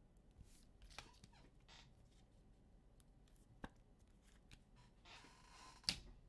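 Quiet handling of trading cards: a few soft clicks and, near the end, a brief sliding rustle as cards are moved through the hands.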